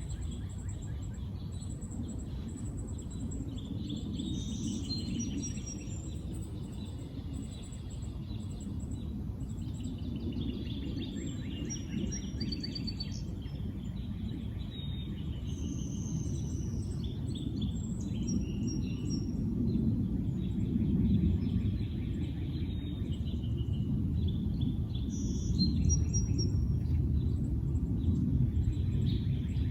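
Several songbirds calling and singing at once: repeated chirps and trills with short high whistles now and then. Under them runs a steady low background rumble, which is louder than the birds.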